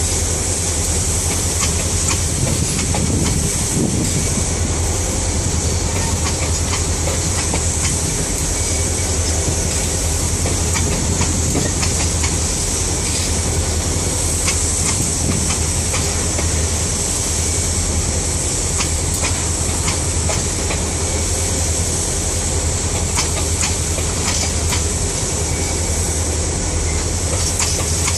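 Empty freight train of covered hopper cars rolling steadily past: a continuous rumble of steel wheels on rail with scattered clicks, and a steady high hiss above it.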